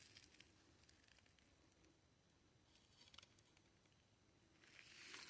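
Near silence, with a few faint ticks and rustles and a soft rustle near the end.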